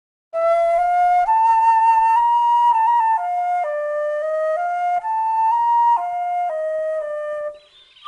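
Background music: a solo flute playing a slow melody of held notes, which stops briefly near the end.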